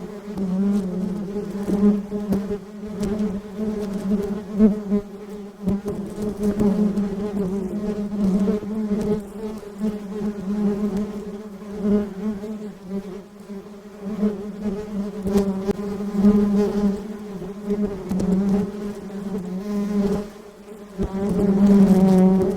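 Honeybees buzzing: a steady hum that wavers in pitch and swells and fades as bees come close and move off, with a short drop in loudness about twenty seconds in.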